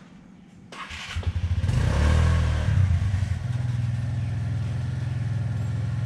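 A motor vehicle's engine is cranked and starts nearby less than a second in, revs briefly, then settles into a steady idle.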